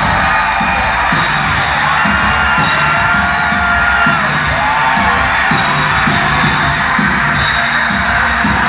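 Live pop band music played loud through the venue PA, with a steady drum beat about twice a second, with the crowd yelling and whooping along.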